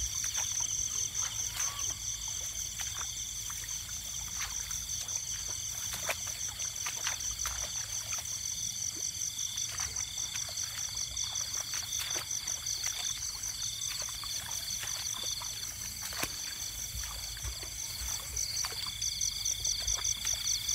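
A chorus of night insects trilling steadily in high, fast-pulsing tones, with a lower trill that breaks off and starts again every second or two. Scattered rustles and snaps come from tall grass being pushed through.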